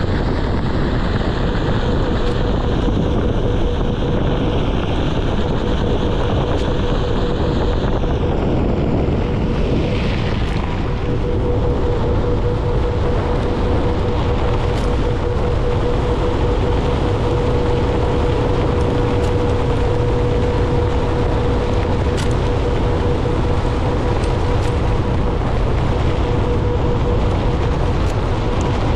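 Onewheel GT-S electric board rolling along a dirt path, with wind buffeting the microphone, tyre noise on the dirt and a steady thin whine from its hub motor.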